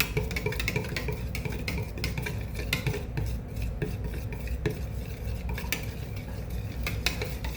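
A spoon stirring white paint into water in a container, clinking against its sides in quick, irregular taps.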